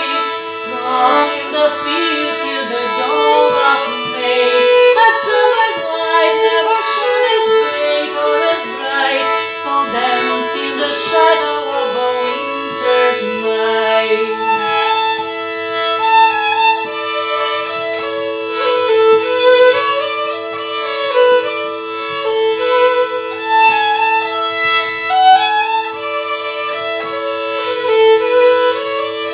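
Instrumental folk tune: a fiddle plays the melody over two steady, unbroken drone notes, with a lower accompanying line under it for about the first half.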